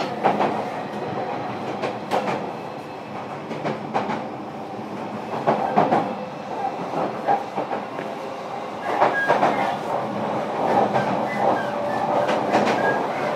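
Running sound inside a JR Kyushu 305 series electric train car at speed: a steady rumble of wheels on rail broken by irregular clicks and knocks over rail joints. It grows a little louder after the middle, with faint whining tones coming and going.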